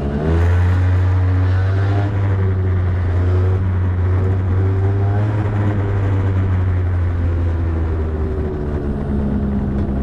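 Motorbike engine revving up as the bike pulls away, then running at a low, fairly steady speed while ridden slowly. Near the end it settles to a steadier note as the bike slows.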